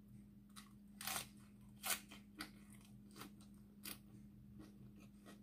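Bites and chewing of a crisp lettuce wrap: a few sharp crunches, the loudest about two seconds in, over a steady low hum.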